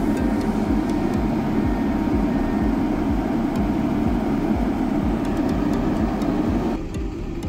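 Diesel engine of a Komatsu PC200F tracked forestry excavator running steadily. Near the end the sound turns suddenly duller.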